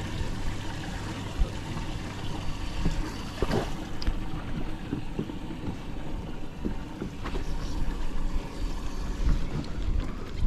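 Wind rumbling on the microphone aboard a small fishing boat, with a few scattered knocks and bumps from handling on deck.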